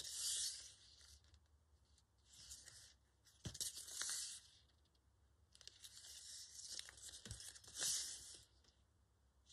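Paper and tape being peeled and handled at a desk: about five short crackling, tearing bursts, each under a second, with a few light clicks between them.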